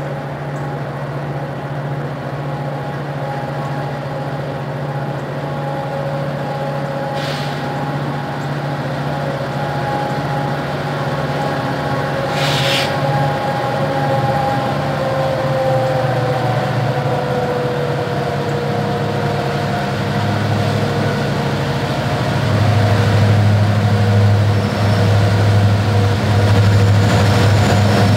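BNSF diesel freight locomotives approaching, their engine rumble growing steadily louder, much stronger in the last few seconds as the lead unit draws near. A whine above the rumble drops in pitch about halfway through, and there are two short hisses.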